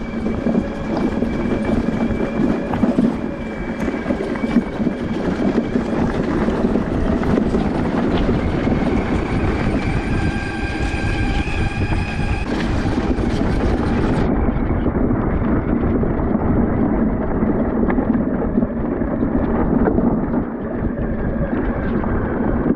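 Coyote electric ATV rolling down a rough dirt-and-rock trail: a steady rumble and rattle from the tyres, suspension and frame, with a thin high whine through the first half.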